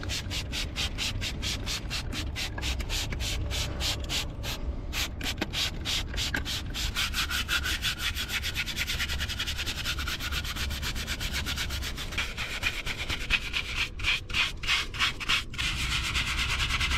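Stiff hand brush scrubbing a wet tire and wheel rim in quick back-and-forth strokes, a steady scratchy rhythm that speeds up partway through.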